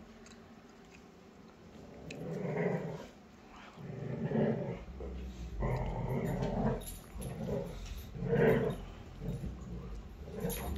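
Two beagles play-fighting, growling in repeated bouts of about a second each from about two seconds in.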